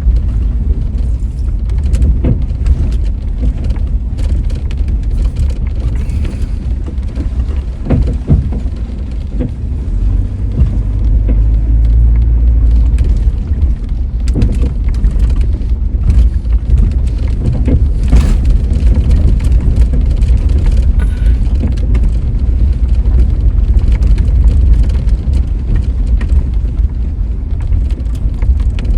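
Car driving along a narrow Forest Service road, heard from inside: a loud, steady low rumble with scattered knocks and rattles, growing a little louder about ten seconds in.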